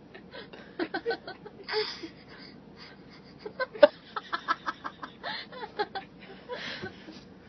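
A toddler blowing raspberries with the lips, short sputtering fart noises in quick runs, mixed with laughter.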